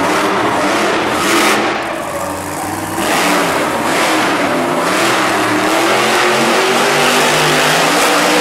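Monster truck engine revving hard as the truck spins donuts. The revs drop briefly about two seconds in, then climb again and hold high.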